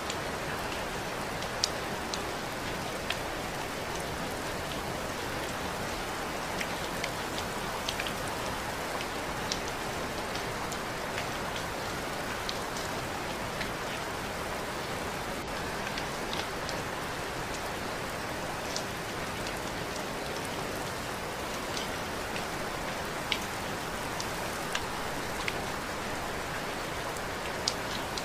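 Steady rain falling: an even hiss with scattered sharp drip ticks of single drops landing close by.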